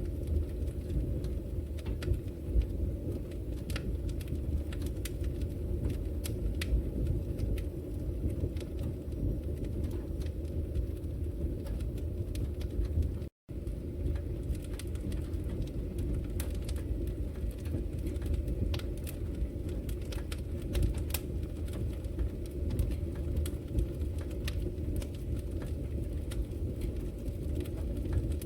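Wood fire burning in a brick fireplace: a steady low rumble of flames with frequent sharp crackles and pops. The sound cuts out for an instant about halfway through.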